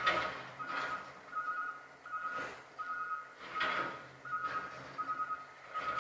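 Paintbrush stirring and scraping thick artist oil paint on a cardboard palette: a few soft scrapes at uneven spacing, over a faint, steady, pulsing tone.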